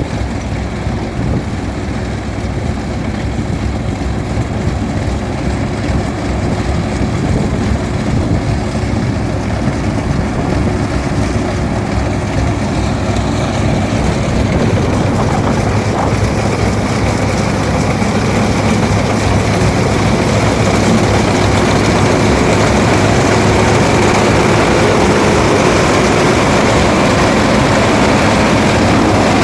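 Rice combine harvester's engine running steadily under load in a deeply flooded paddy, growing gradually louder.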